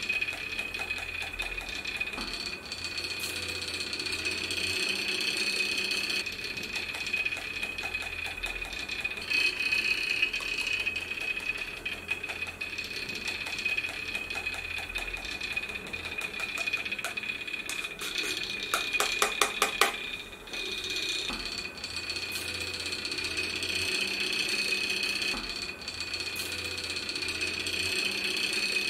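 Magnetic stirrer running with a steady high-pitched whine and a low hum that comes and goes, its stir bar spinning water in a glass beaker. About two-thirds of the way through there is a fast clicking rattle lasting about a second and a half.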